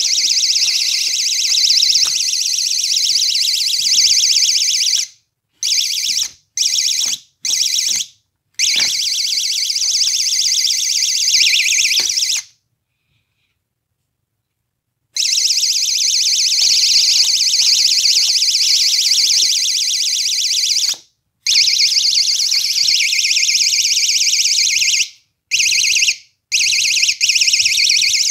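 GE door alarm sounding a loud, shrill alarm tone with a fast pulse. It cuts off briefly several times and goes silent for nearly three seconds around the middle, then starts again.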